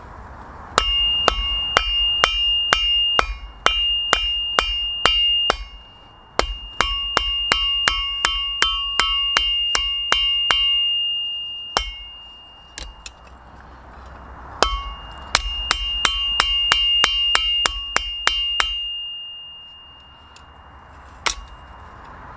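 Hand hammer forging a steel file on an anvil: three bouts of steady blows, about two or three a second, each with a clear ringing tone, separated by short pauses, then one last blow near the end. A steady hiss sits underneath.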